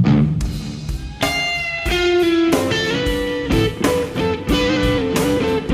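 Live rock instrumental: a lead electric guitar plays held melody notes, stepping from note to note, over a full band with steady drum hits. The band comes in louder a little over a second in.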